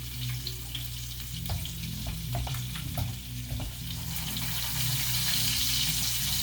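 Monkfish pieces sizzling in a frying pan, with a few sharp clicks in the first half; the sizzle grows louder about four seconds in.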